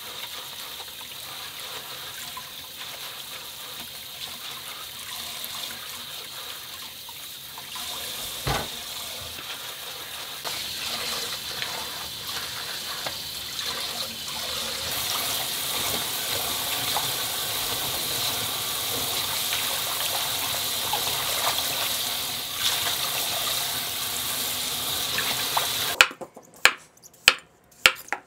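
Tap water running steadily into a stainless steel sink over radishes being scrubbed, getting louder about a third of the way in, with a single knock partway. Near the end the water cuts off suddenly, followed by a few sharp knife strokes cutting radish on a wooden cutting board.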